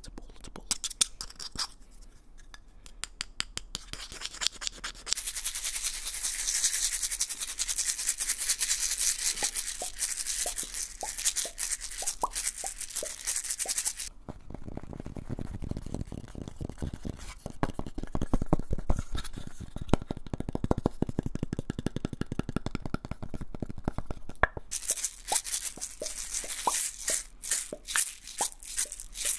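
Close-miked ASMR handling of a small glass jar with a metal lid. It opens with quick taps and clicks, then a long stretch of fast shaking and rubbing, first a hissy rustle and then a deeper rapid rattle, and ends with quick taps again.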